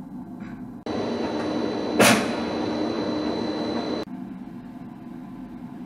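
SKIQ 16 CNC vertical lathe running: a low steady hum, with a louder mechanical noise and a high steady whine that starts abruptly about a second in and stops abruptly about four seconds in. A sharp clunk about two seconds in is the loudest sound.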